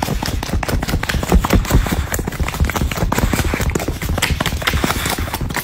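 A dense run of crackles and knocks close to the microphone, made by a boxer dog nuzzling and rubbing its head against the phone and blanket.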